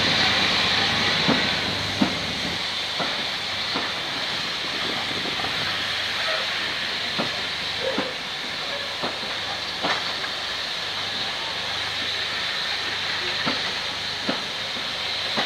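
Steam-hauled passenger coaches rolling slowly past, with a steady hiss of steam. Irregular clicks and knocks, about one a second, come from the wheels crossing the rail joints.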